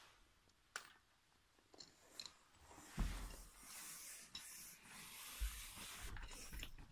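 Faint rustling and handling noise as a phone is moved around while filming, with a few light clicks, a soft thump about three seconds in, and a rustling hiss with low bumps after it.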